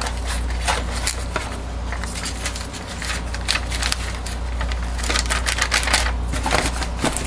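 Plastic piping bags crinkling and rustling as gloved hands handle the roll in a cardboard dispenser box, in many quick irregular crackles. A low steady hum runs underneath.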